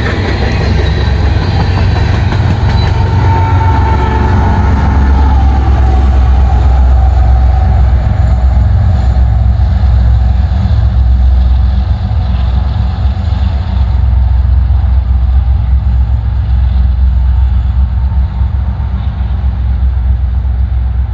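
Empty coal train of hopper cars rolling past, with wheel squeal and clatter that fade over the first few seconds. A loud, steady low rumble is left as the train moves off down the line.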